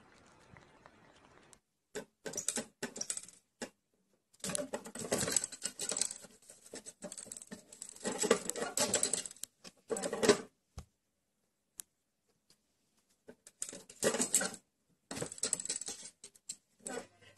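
Cardboard flap door of a cat house rattling and scratching as it is poked and pawed at by a cat, in irregular bursts a second or two long with short silences between.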